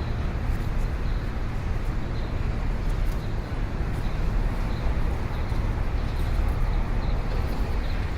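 Busy city street ambience: a steady low rumble of traffic with a dense background din, without any single event standing out.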